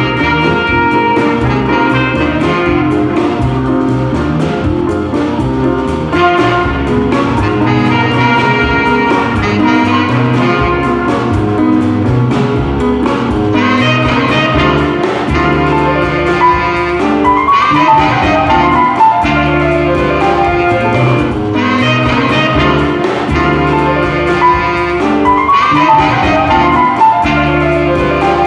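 Jazz-style band music playing steadily, with a melody line running over a full rhythm section.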